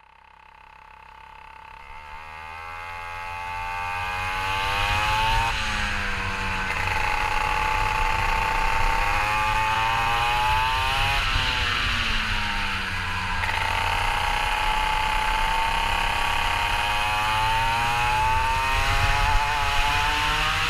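Go-kart engine running hard around a wet track, its pitch climbing steadily along the straights and dropping sharply when the kart slows for corners, three times. The sound swells in from near silence over the first few seconds.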